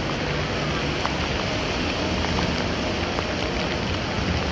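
Heavy downpour pelting wet brick paving and standing water: a steady hiss of rain with scattered sharp drop splashes.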